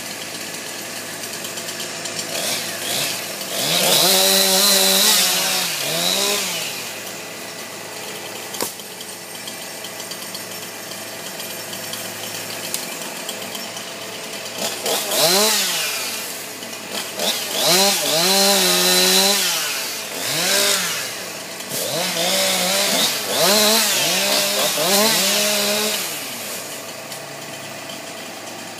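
Chainsaw engine idling and revved up in bursts, the pitch rising and falling each time. There is one burst about four seconds in, then a run of them from about fifteen to twenty-six seconds, dropping back to idle between.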